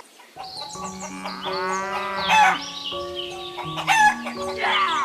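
A rooster crowing once, its call rising and then falling, over light background music with bird chirps.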